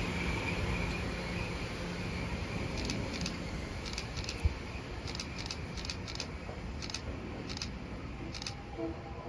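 Metro-North electric commuter train pulling away along the tracks, its rumble and faint high whine fading as it recedes. From about three seconds in, short high chirps repeat irregularly, and there is a single sharp knock about halfway.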